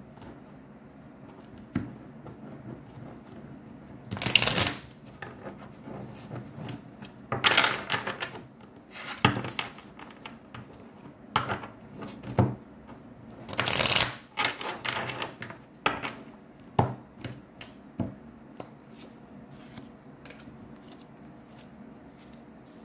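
A deck of tarot cards being shuffled by hand: papery riffles and slides come in uneven bursts with small clicks between them. The loudest bursts fall about four seconds in and again near fourteen seconds.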